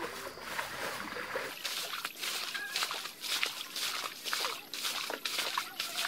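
Muddy stream water being scooped and flung out with plastic bowls: a quick, irregular run of splashes and sloshes, several a second.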